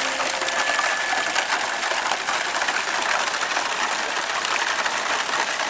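Radio-controlled model plane's motor running steadily at high power as it takes off and climbs away, mixed with a steady hiss of rain and water.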